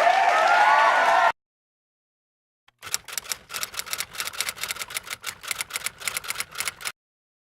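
A crowd cheering and applauding with whistles cuts off abruptly about a second in; after a gap of silence, typewriter keys clack rapidly and irregularly for about four seconds, then stop suddenly.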